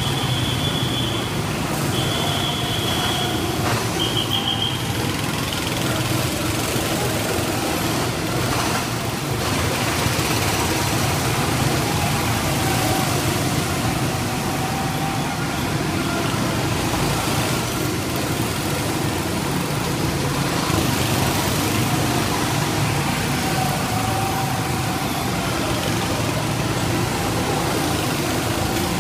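Several go-kart engines running together as the karts circle the slick track, a steady drone. A high tone sounds three times in the first few seconds.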